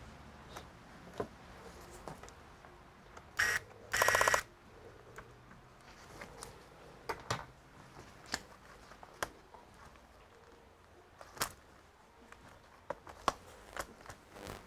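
Laptop being taken apart by hand: scattered light clicks and taps on its case, with a brief rasping run of rapid clicks about four seconds in.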